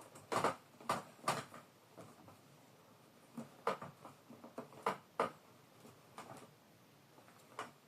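About seven short, sharp clicks and creaks at irregular moments as a latigo leather lace is twisted and tugged through tight wraps with a lace pull. Three come close together in the first second and a half.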